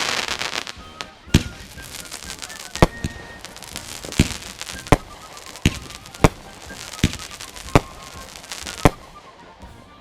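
Fireworks going off: a burst of crackling, then about nine sharp bangs roughly a second apart, with crackling in between.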